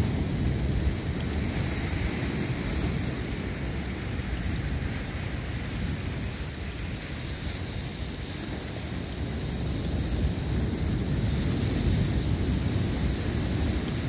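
Wind rumbling on the microphone over a steady rush of ocean surf, dipping a little midway and rising again.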